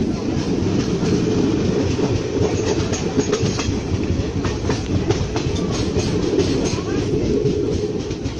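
Passenger train running, heard from aboard: a steady heavy rumble, with a run of sharp clacks from the wheels passing over rail joints through the middle.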